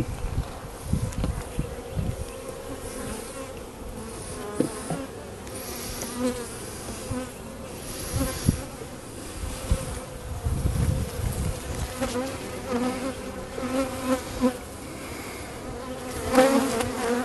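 A mass of honeybees buzzing in a steady hum around an opened hive as its frames are lifted out, with occasional low rumbles.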